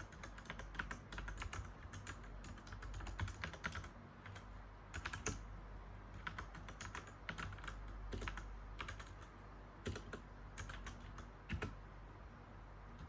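Typing on a mechanical keyboard: quick runs of sharp key clicks broken by short pauses, over a faint low hum.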